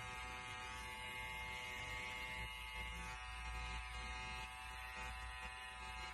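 Electric hair trimmer buzzing steadily, being used to trim nose hair.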